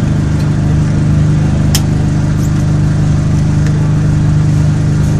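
Seat León race car's engine idling steadily, heard from inside the cabin, with one brief light click a little under two seconds in.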